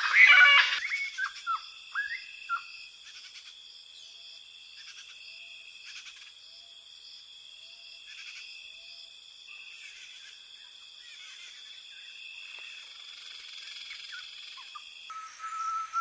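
Rainforest insects droning steadily at several high pitches, pulsing gently. In the first second a loud pitched animal call ends, followed by a few short falling chirps; near the end the sound switches abruptly to a louder, wavering steady tone.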